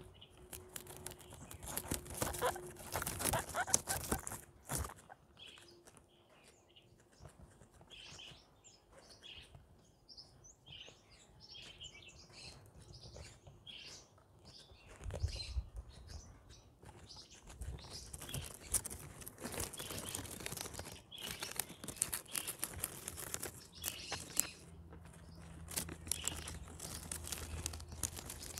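Guinea pigs chewing and tearing at flowers and greens: a run of small crunchy clicks and rips, with two denser spells of crunching, about two seconds in and again near two-thirds of the way through.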